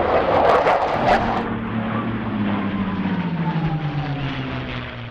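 Aircraft flying past: a loud rushing engine noise, then a hum whose pitch falls steadily as it moves away.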